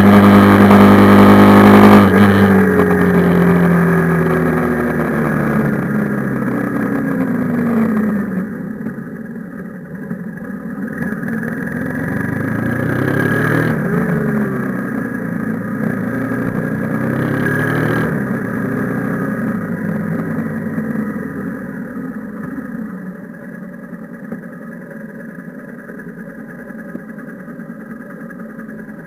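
Honda CB150F's single-cylinder engine heard on board, pulling hard at speed for about two seconds with wind rush, then the throttle closes. The engine note falls as the bike slows, with a couple of brief rises and falls in pitch midway, and it settles to a low, quieter run near standstill.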